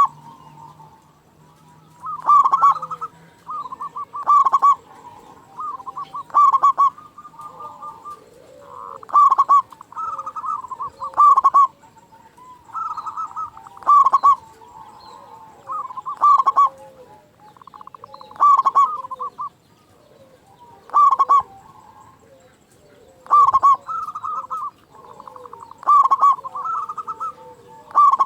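Zebra dove (perkutut) singing: a short phrase of rapid, pitched coos repeated about every two seconds.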